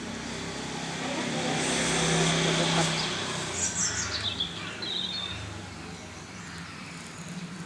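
Street ambience: a motor vehicle passing, swelling to its loudest about two to three seconds in, then a bird's quick run of high, falling chirps.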